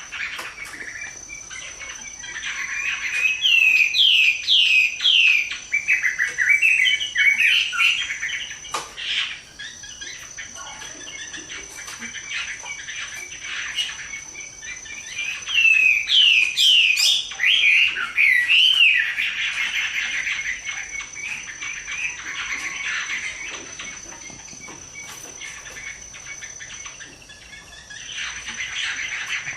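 Chinese hwamei singing: two loud bursts of rapid, sweeping whistled notes, one about three seconds in and another about fifteen seconds in, with quieter continuous warbling between them.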